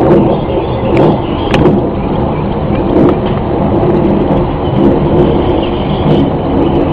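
Loud, steady low rumbling drone of the kind reported as the 2011 'strange sounds' in the sky, recorded on a phone or camcorder microphone, with a few short clicks.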